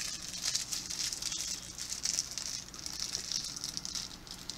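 Small plastic wrapper crinkling and rustling steadily as it is picked open by hand to free a mochi squishy toy.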